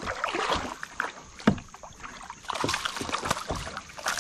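Water splashing and small irregular knocks from a kayak while a bass is played on the line beside the boat, with the fish thrashing at the surface near the end. One sharp knock stands out about a second and a half in.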